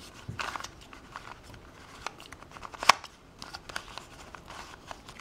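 Plastic container puzzle, a shape-shifting twisty puzzle, turned by hand: an uneven run of small clicks and clacks as its pieces turn and shift, with one sharp loud click about three seconds in.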